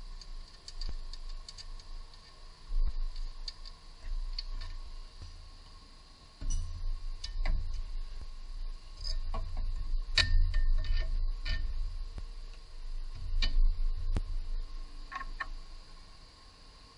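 Irregular metal clicks and knocks with dull thumps as a car's front lower control arm is handled and moved into position against the suspension. The sounds are sparse at first and busiest in the middle stretch, then die away near the end.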